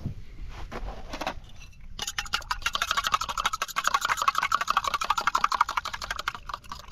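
Eggs being beaten with a fork in a stainless-steel mug: a rapid, even clinking of metal on metal that starts about two seconds in, after a few light knocks.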